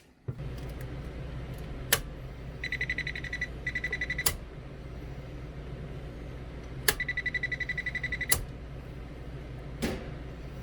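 Stackable washing machine being started: sharp button clicks and two spells of rapid electronic beeping from its control panel over a steady low hum.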